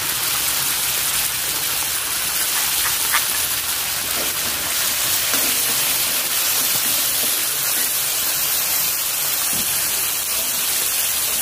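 Tomato sauce and sautéed aromatics sizzling steadily in hot oil in an aluminium wok, with a few light scrapes of a ladle as it is stirred.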